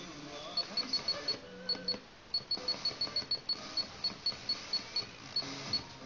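Rapid string of short, high beeps, all at one pitch, about four or five a second with a brief pause, from a Sanyo FXR-22LP car radio. Faint FM music and static play underneath.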